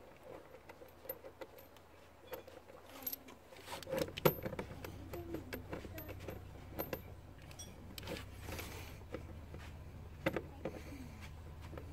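Small metallic clinks and clicks of screws and a hand tool as the fixing screws go into a car's plastic front engine cover, the sharpest click about four seconds in. A low steady hum comes in about three and a half seconds in.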